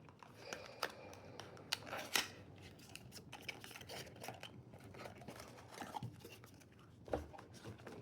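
Faint handling noises as a small compartment is opened and an egg taken out: scattered short clicks, snips and scrapes, the sharpest a few in the first two seconds and one near the end.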